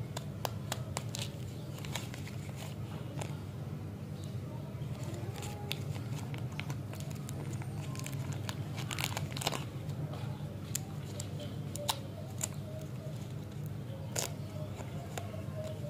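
Plastic lollipop wrapper crinkling and crackling as it is handled and peeled open, in scattered sharp crackles over a steady low hum.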